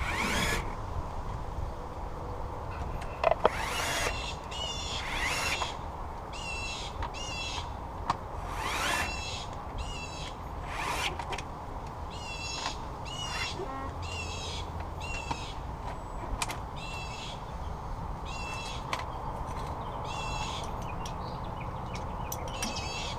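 Small birds chirping over and over in short repeated calls. In the first ten seconds there are a few rising, ratcheting zips of a plastic cable tie being pulled tight, and a couple of sharp clicks.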